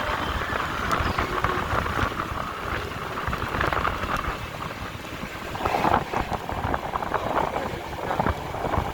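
A vehicle travelling along a road, with a steady rumble and wind buffeting the microphone.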